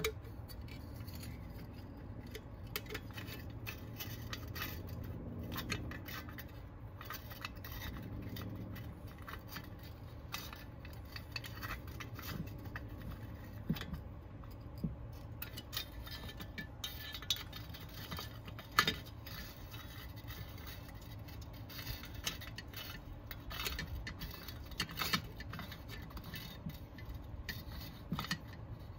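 Small metallic clicks, taps and scrapes of an Allen key working the muffler screws on a Husqvarna 371 XP chainsaw, scattered irregularly, over a steady low hum.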